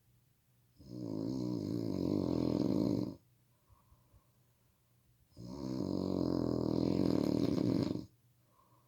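Loud snoring from a sleeping person: two long snores a few seconds apart, each lasting about two and a half seconds.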